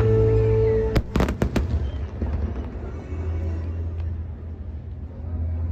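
Music playing, then about a second in a rapid cluster of fireworks bangs and crackles, followed by a lower rumbling noise.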